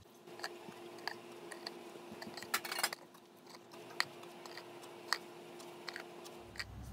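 Light clicks and taps as piped butter cookies are set down one by one in a plastic Tupperware container, with a short rustling, scraping cluster near the middle. A faint steady hum sits underneath and stops shortly before the end.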